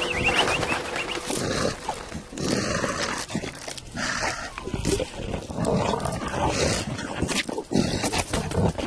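Animated lion character growling and grunting amid busy cartoon sound effects, with short falling bird chirps and wing flutter in the first second.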